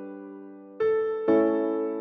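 Background music on a soft piano-like keyboard. Chords are struck about a second in and again half a second later, each fading away.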